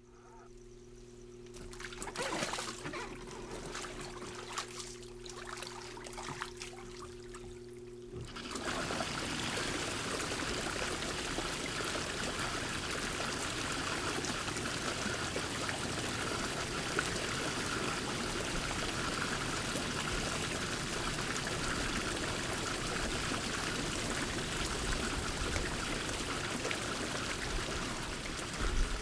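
Hot tub water churning and bubbling from the jets. For the first eight seconds there is a low steady hum with scattered splashes; then the water noise swells suddenly into a loud, even rush that holds steady.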